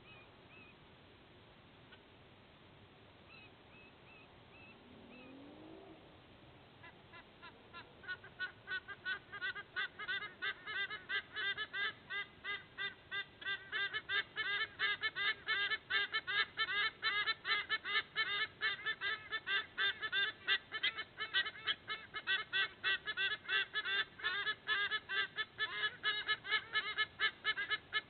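A pair of white-bellied sea eagles calling together in a duet: a fast run of repeated calls, about four or five a second. The calls start faintly about seven seconds in and grow louder.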